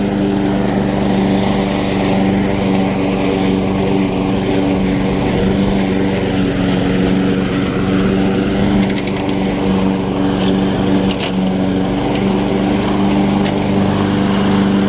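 Weed Eater walk-behind lawn mower's small engine running steadily at speed, then winding down at the very end as it is shut off. A few light clicks come over it in the second half.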